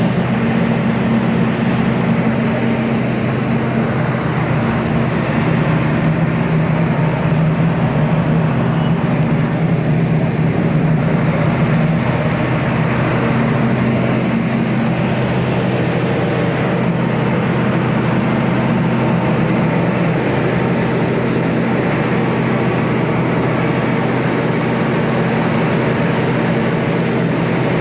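Concrete mixer-pump machine running steadily: an even engine drone with a low hum that keeps the same pitch.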